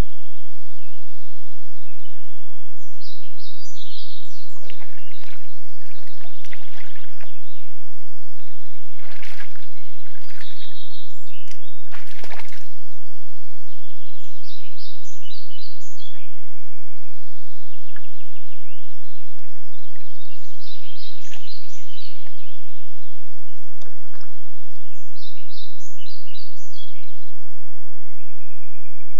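Songbirds singing in repeated short chirping phrases, with bouts of water sloshing and splashing about 5, 9 and 12 seconds in as moose wade and drink in a shallow muddy puddle.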